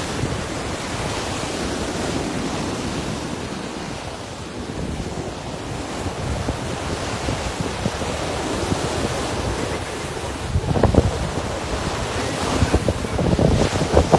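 Sea surf washing on a beach with wind buffeting the microphone, a steady rushing noise. A few sharp bumps come near the end.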